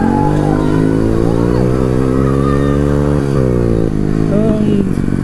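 Modified Honda motorcycle with a freshly fitted aftermarket exhaust, riding under throttle: the engine note climbs steadily for about three seconds, then drops as the throttle is eased off.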